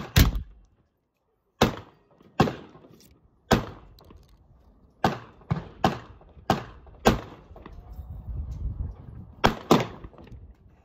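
A .45 caliber percussion muzzle-loading pistol fires with a sharp bang right at the start. Then comes a series of separate sharp knocks and taps as the pistol is reloaded muzzle-up and the ramrod works at the barrel.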